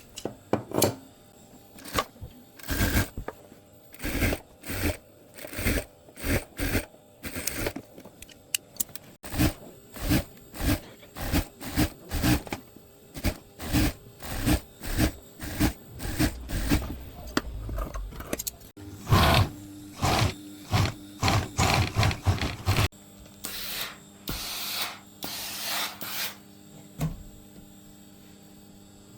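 Repeated short scraping strokes, roughly one to two a second, in several takes cut together.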